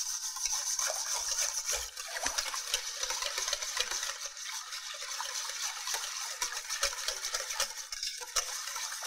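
Wire balloon whisk beating a thick soy-based sauce in a stainless steel bowl: a steady wet swishing and churning, with many light ticks of the wires against the bowl.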